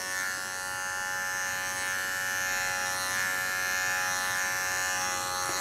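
Electric dog-grooming clipper with a number one blade, running with a steady buzz as it clips a puppy's coat in short strokes with the grain.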